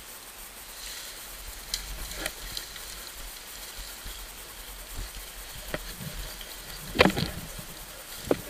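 Twigs and branches snapping and leaves rustling as people push through and clear dense undergrowth, with scattered sharp cracks, the loudest about seven seconds in.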